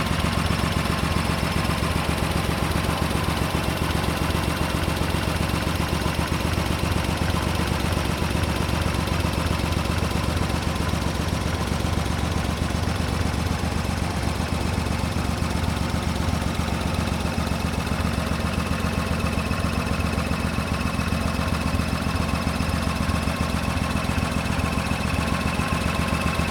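Chevrolet Opala Diplomata's straight-six engine idling steadily and evenly, running firm.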